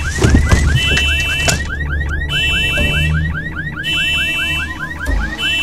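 Car alarm going off: a fast run of rising chirps, about seven a second, with a steady high two-tone beep cutting in and out about every one and a half seconds, over a low drone. A couple of knocks sound in the first half-second.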